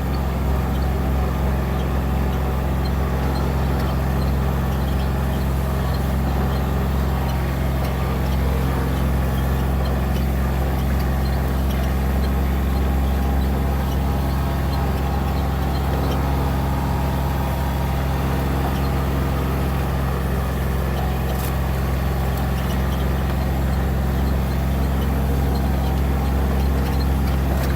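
Steady engine and road noise of a vehicle driving at an even pace, a constant low hum with no change in speed.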